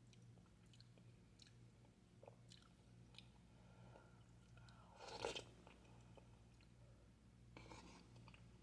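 Faint chewing and eating sounds, scattered soft clicks, with one short louder noise about five seconds in, over a low steady hum.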